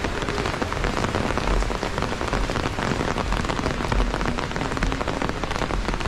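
Heavy rain falling steadily, a dense spread of individual drop impacts.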